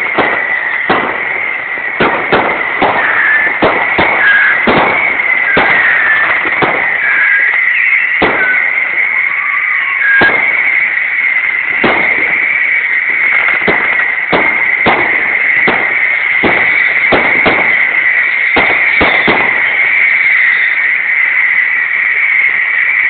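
Fireworks display: rockets bursting in a rapid, irregular run of bangs, thinning out near the end, over a steady high hiss. A few short whistles sound in the first half.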